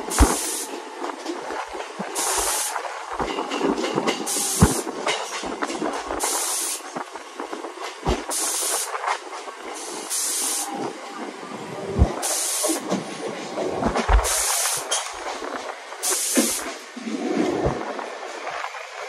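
Mumbai suburban local electric train running, heard from its open doorway: a steady rush of wind and running noise with scattered sharp knocks from the wheels on the rails, and a short hissing burst about every two seconds.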